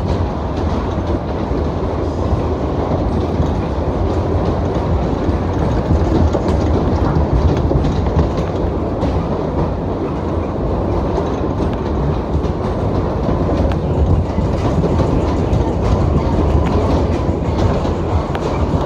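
Maxwell Waltzer running at speed, heard from inside a spinning car: a steady heavy rumble of the cars rolling round the track, with a light clatter.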